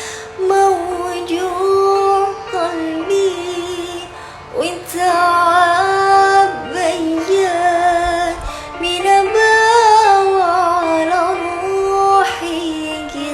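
A woman singing solo in a high, ornamented style: long held notes with vibrato and quick melodic turns, briefly pausing for breath about four seconds in, with light accompaniment underneath.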